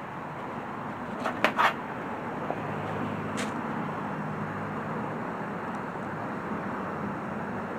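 A small blue plastic piece being worked off a wire by hand: a few sharp clicks about a second in and one more a couple of seconds later, over a steady low background hum.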